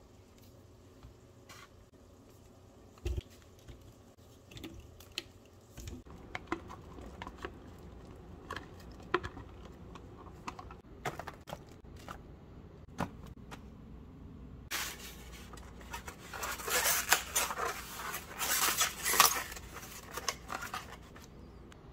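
Hands working at a kitchen counter: scattered light knocks and clicks, then a few seconds of louder scraping and rustling as foam takeout containers are handled and pressed shut.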